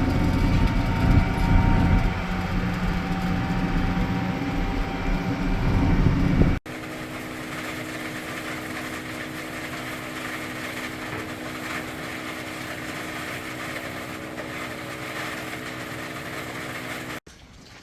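Farm machinery engine running loudly and steadily, with a deep rumble. About six and a half seconds in it cuts abruptly to a quieter, steady machine hum that holds a few fixed tones, and that cuts off again just before the end.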